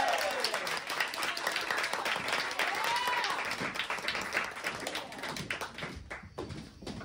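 Audience applauding, with a single voice whooping about three seconds in; the clapping thins out and dies away near the end.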